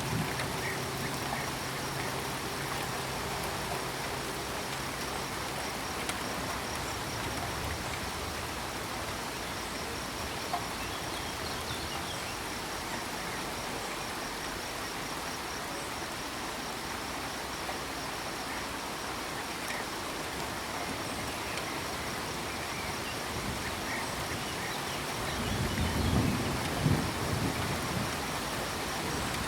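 Steady rain falling, with a cricket chirping in a fast, high, continuous pulse over it. About three-quarters of the way through, a low rumble of thunder swells and fades.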